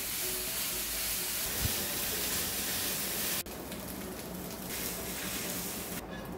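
Leftover fried chicken sizzling in a nonstick frying pan, with a splash of added water hissing off as steam. The hiss drops suddenly about three and a half seconds in, and fades further near the end as the pan comes off the burner.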